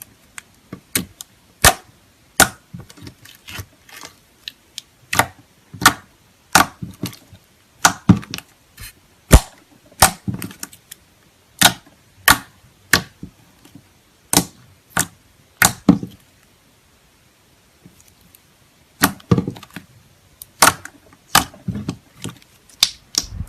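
Slime being pressed and poked by hand, giving a string of sharp popping clicks, about one or two a second, with a pause of a couple of seconds about two-thirds of the way through.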